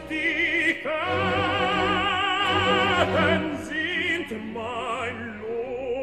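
Operatic tenor singing with a wide vibrato over an orchestra, holding one long note for about two seconds before moving on to shorter phrases.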